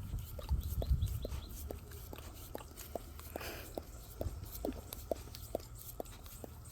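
Dog licking whipped cream from a pup cup, short wet licks at a steady rhythm of about two or three a second.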